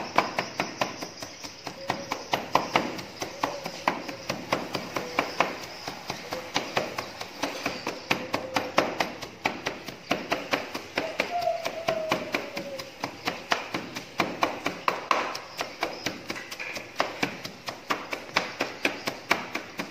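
Wooden pestle pounding garlic and chilies in a wooden mortar: steady, even knocks, about three a second.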